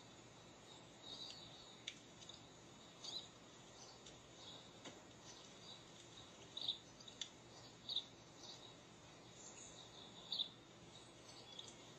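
Faint, short, high-pitched chirps at irregular intervals, from a cat-entertainment video of a small animal playing through a tablet's speaker, over a steady low hiss.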